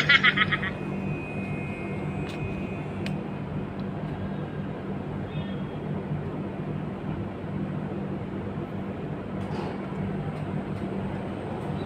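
LG 2.5 hp split-type air conditioner outdoor unit running with a steady low hum and even fan noise.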